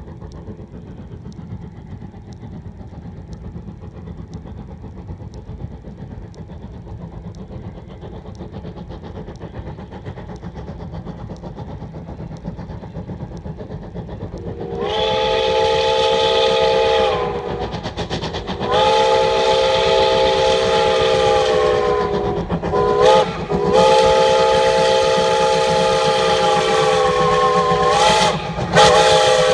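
Steam locomotive Jeddo Coal Co. No. 85 rumbling as it approaches, then about halfway through sounding its chime steam whistle in two long blasts, a short and a long: the grade-crossing signal. Each blast sags in pitch as it ends.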